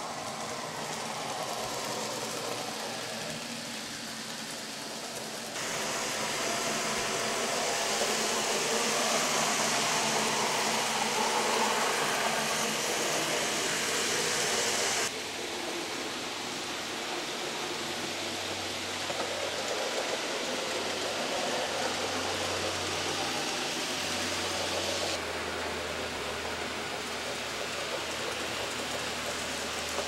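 N gauge model steam locomotive running along the track: a steady rushing hiss of its motor and wheels on the rails, which jumps in level abruptly a few times.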